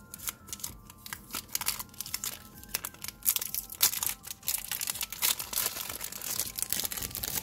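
Thin clear plastic shrink wrap torn open and peeled off a stack of trading cards, with irregular crinkling and crackling that grows busier and louder in the second half.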